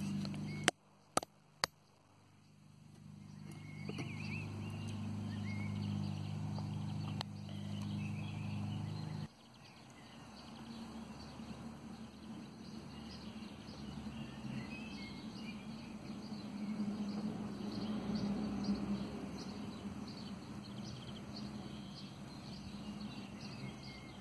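Outdoor ambience with birds chirping. For the first nine seconds a steady low drone, like a distant motor, runs under it. Three sharp clicks come about a second in.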